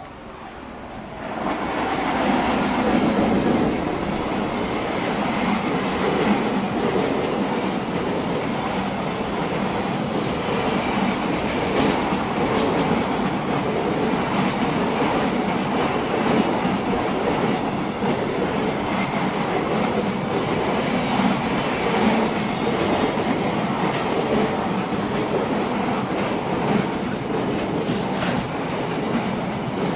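A train passing close by on the track, its wheels and running noise swelling sharply about a second and a half in and staying loud, with a few faint clicks along the way.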